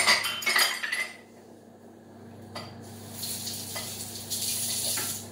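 Dishes and utensils clattering as they are put away. After a pause comes a steady hiss of a kitchen tap running into the sink for about two seconds.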